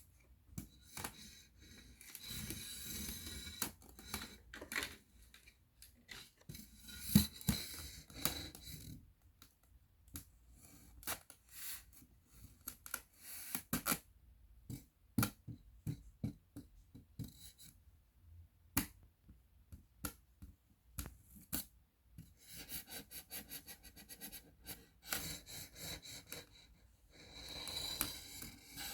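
A round cake box and its plastic lid being rubbed and scratched, with stretches of steady scratchy rubbing. In the middle these give way to a run of separate sharp taps and clicks.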